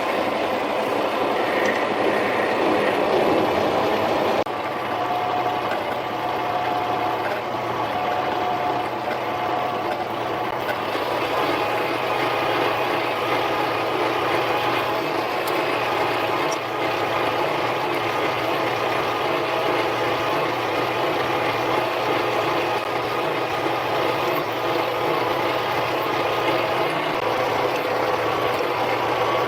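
Harbor Freight mini lathe running steadily, its motor and drive holding a few steady tones, most likely while a hole is drilled through a polycarbonate spacer on it. The sound drops slightly about four seconds in and then holds even.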